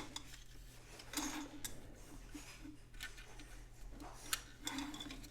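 Faint, irregular light clicks and scrapes from the opened plastic flip clock being handled.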